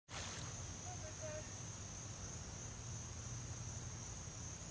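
Summer insects singing: a steady high-pitched buzz with a second, higher call that pulses about twice a second, over a low steady rumble.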